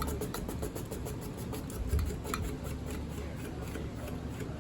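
Outdoor ceiling fan with plastic blades running, with a low hum and a fast, even ticking that fades out, and a single thump about two seconds in. It was pulled to medium but still seems to run at high speed, which the owner guesses is a failing capacitor.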